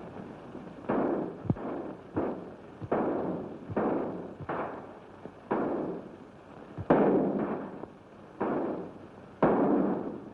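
Gunfire exchanged in a shootout: about ten separate shots at uneven intervals, each cracking sharply and then fading in a short, hissy echo, as on an early-1930s film soundtrack.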